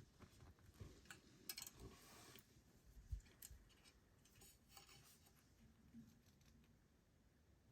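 Faint handling sounds: small clicks, light scrapes and rustles of objects being moved by hand, with a brief low knock about three seconds in.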